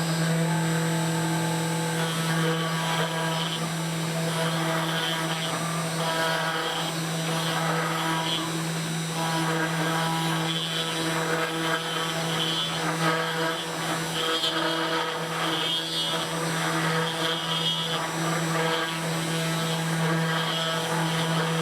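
Desktop CNC router's spindle running steadily while a 1/8-inch ball-nose bit carves a relief pass in wood, the cutting hiss rising and falling over the steady spindle tone.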